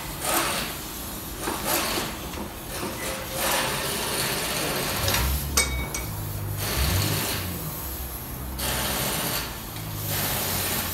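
Workshop tool noise: a pneumatic impact wrench running in stretches, with clinks and knocks of metal tools.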